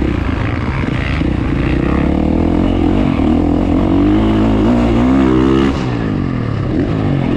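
Gas Gas 450 four-stroke single-cylinder dirt bike engine, freshly rebuilt with a high-compression piston, running steadily, then revving up from about four seconds in and dropping back suddenly near six seconds.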